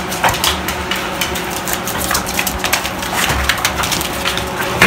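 Crackling and crinkling of a crumpled wrapper as two dogs tussle over it, with many short clicks and a sharper crack just before the end.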